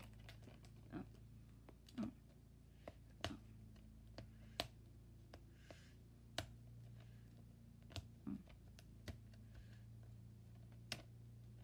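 Hands handling a plastic DVD case, giving scattered light clicks and taps over a faint low hum.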